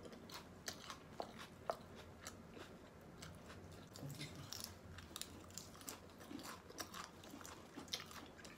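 Quiet, crisp crunching and chewing of raw salad greens bitten off chopsticks, many small crunches in a row.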